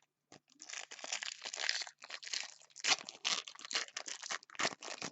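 Foil trading-card pack wrapper being torn open and crinkled by hand: a run of quick, sharp crackles that goes on for several seconds.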